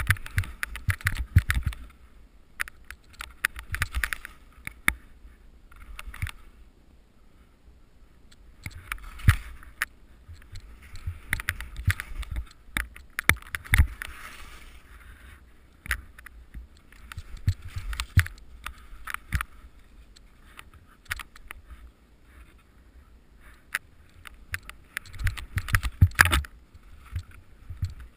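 Alpine skis (Head) sliding and turning through deep powder snow: bursts of swishing hiss with each turn, mixed with many sharp clicks and knocks and a low rumble, quieter stretches between turns.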